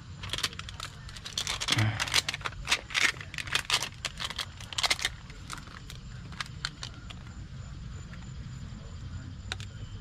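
Flex Seal tape being handled and pressed down, giving crinkling and sticky crackling. A rapid run of sharp clicks lasts about five seconds, then only a few scattered clicks remain.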